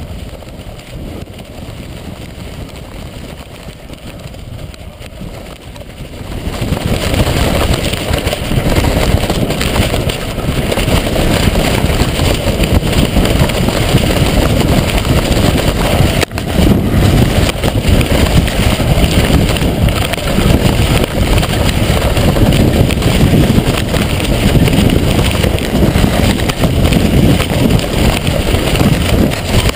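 Strong gusty wind buffeting a GoPro's microphone on a box kite flying in 20–30 mph winds. It starts as a moderate hiss and jumps to loud, dense wind noise, heaviest in the low end, about six and a half seconds in, with a brief drop near the middle.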